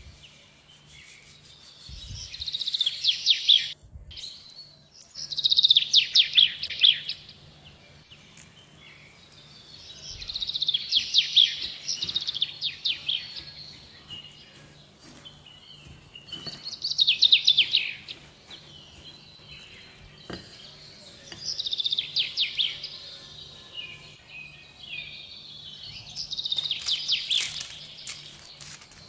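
A songbird singing repeated trilled phrases, each one to two seconds long and made of rapid notes, about every four to five seconds. A faint steady hum lies underneath.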